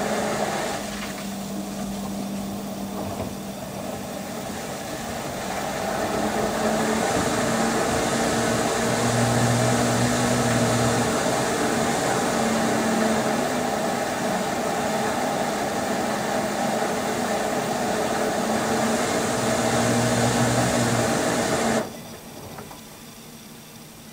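LG VC2 AI DD washer-dryer with an inverter direct-drive motor turning its drum through the wash: water and a soaked duvet sloshing over a steady motor hum. It grows louder a few seconds in and stops suddenly near the end as the drum halts.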